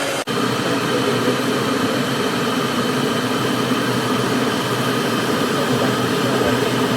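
Steady hum and rush of an electric kitchen appliance running, with a momentary break about a quarter second in.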